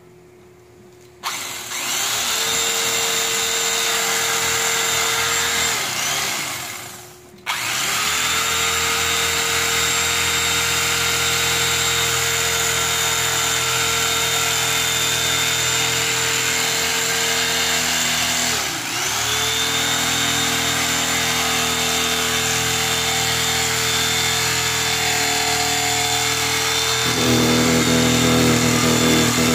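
Corded electric carving knife running, its motor driving the twin reciprocating blades through pick-and-pluck foam. The motor starts about a second in, stops briefly near seven seconds, sags once in pitch around the middle, and settles on a lower, louder note near the end.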